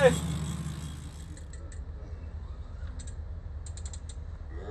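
Fishing reel clicking in short runs of quick clicks while the rod is bent under a hooked fish, over a steady low hum. A short loud burst of noise at the very start fades within about a second.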